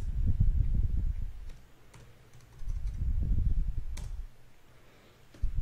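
Computer keyboard typing in two short spells with a pause between, the keystrokes coming through as dull thuds.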